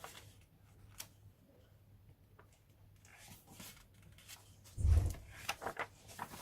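Pages of a hardback book being turned and handled: a soft paper rustle a few seconds in, then a low thump just before the end, followed by a few light taps.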